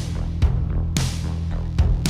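Background music with a steady beat and heavy bass, with percussion hits about every half second.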